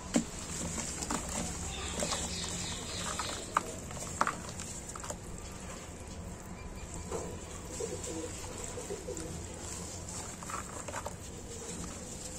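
Lumps of dry cement crushed in gloved hands and dropping into a bucket of water, giving a few sharp crumbling cracks near the start and around four seconds in, over a steady background hiss with some faint low calls in the middle.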